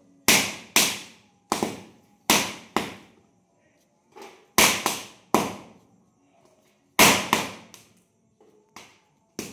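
Firecrackers bursting one after another at irregular intervals: about a dozen sharp bangs, each dying away quickly, with a couple of short pauses. These are leftover misfired crackers going off in a fire.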